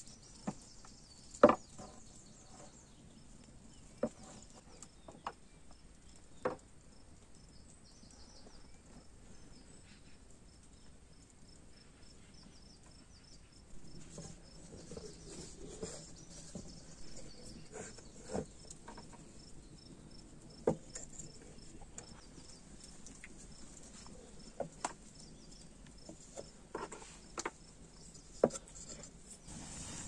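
A few cleaver chops on a wooden board in the first seconds, the loudest about a second and a half in. Scattered soft knocks of handling follow, over a faint, steady, high insect chirping.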